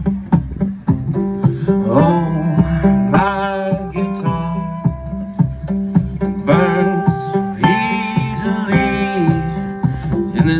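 Live acoustic band: strummed acoustic guitar over an electric bass line and hand-played congas, with a singing voice coming in and out.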